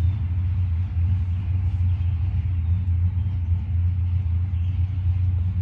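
Steady, loud low rumble with a faint hiss above it.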